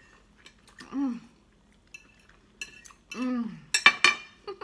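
Knives and forks clinking and scraping on ceramic dinner plates as meat is cut, with the sharpest clinks near the end. Twice a short hummed voice sound rises and falls in between.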